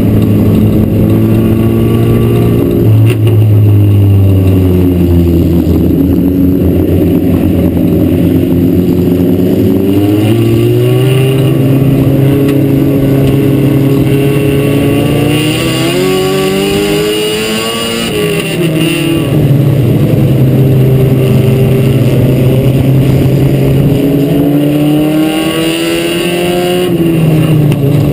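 Four-cylinder mini stock dirt-track race car engine running hard, its pitch climbing and falling back several times as the car accelerates and lifts off, with the deepest drop about two-thirds of the way through.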